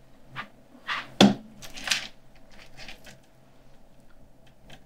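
Small tools and metal pieces being picked up and set down on a jeweller's workbench: a scatter of clicks and knocks, the loudest about a second in.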